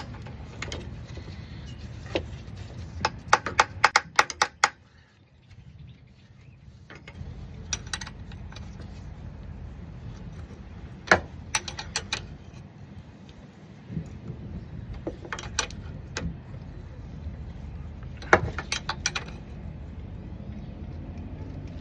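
Metal clinks and clicks from hand-fitting a seal-puller tool onto a TH350 transmission's shifter shaft, coming in short rapid clusters several times, the busiest about three to five seconds in, over a steady low rumble.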